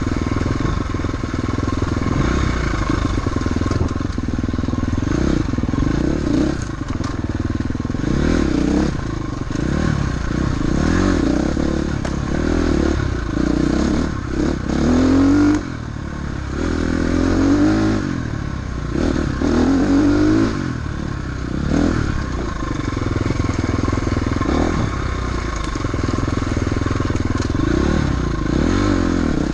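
Off-road motorcycle engine running under load during an enduro special test. Its pitch rises and falls again and again as the throttle is opened and closed.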